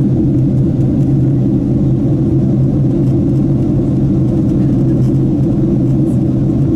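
Airliner cabin noise in flight on descent: the steady low rumble of the jet engines and airflow heard from a window seat, with a constant low hum under it.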